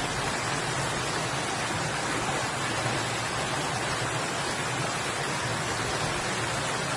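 Water from the low-running falls and stream splashing over rocks, a steady, even rush.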